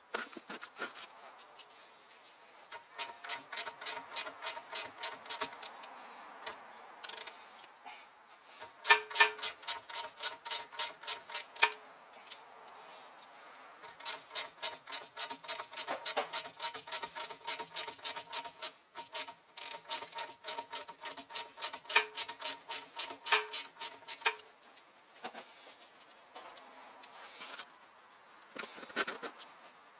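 Toyota Esquire making an abnormal noise while driving, a rapid regular clicking or rattling of about five or six clicks a second. It comes in runs of several seconds that stop and start again. The uploader ties the noise to a shock absorber.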